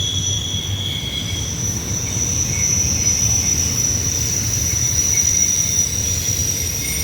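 Intermodal freight train's steel wheels squealing against the rail as the cars round a tight curve: a high, steady whine over the low rumble of the passing cars. A second, lower squeal fades out about a second and a half in.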